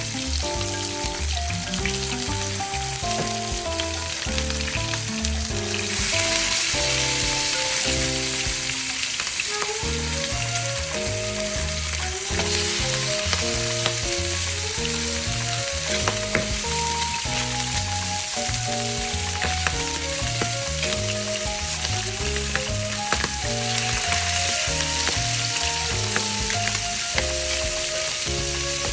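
Milkfish pieces sizzling as they fry in oil in a nonstick pan, the sizzle getting louder about six seconds in and again near the end, over background music.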